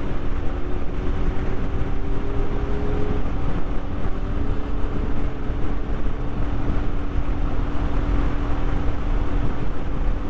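Motorcycle engine running steadily at cruising speed, its note held even, with wind rushing over the microphone.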